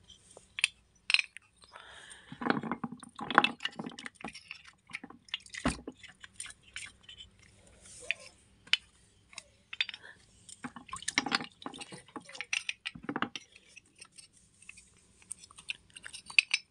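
A hand working in a plastic tub of water, lifting out soaked clay oil lamps, with water splashing and dripping in irregular bursts and short clicks as the clay lamps are set down.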